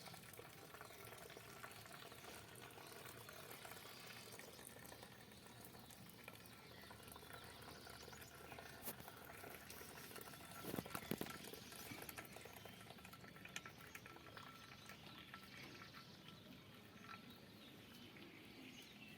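Faint water sounds in a kitchen, with a few light knocks around the middle.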